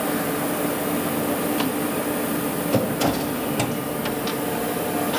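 Steady hum and hiss of a Scharmann CNC horizontal floor boring machine running, with a handful of short sharp clicks through the middle.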